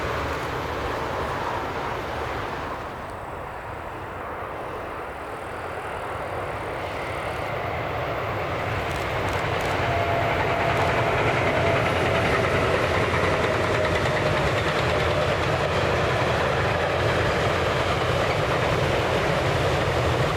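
A train running along the track: a steady rail rumble that swells over the first half and stays loud to the end.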